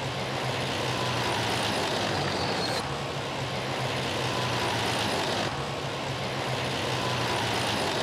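Tanks driving fast over a dirt course: a steady engine drone with a low hum and a thin high whine. The sound changes abruptly about 3 and 5.5 seconds in as the shots cut from one tank to another.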